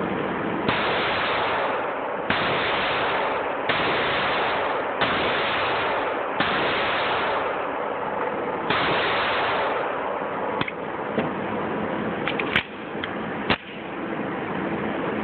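Taurus PT 1911 .45 ACP pistol fired six times at an indoor range, about one shot every second and a half with a longer pause before the last, each shot followed by a long wash of echo. After the string come a few sharper clicks and knocks.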